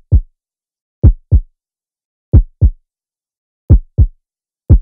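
A heartbeat sound effect: slow, deep double thumps, lub-dub, about one heartbeat every 1.3 seconds.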